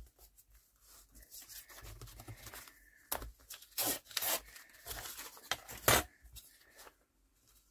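Paper being handled and rubbed flat, rustling with a few sharp crackles about three to six seconds in.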